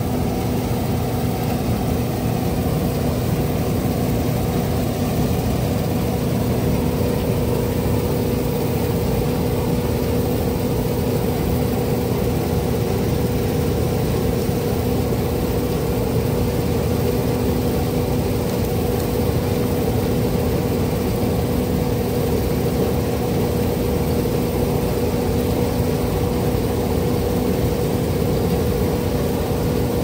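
Heavy harvest machinery running steadily at constant speed: a diesel engine drone with a steady hum that does not change.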